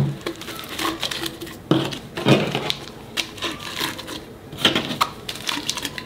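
Oxygen absorber sachets being pushed by hand into a glass jar: rustling and crinkling of the packets and their torn plastic wrapper, with irregular light clicks and taps.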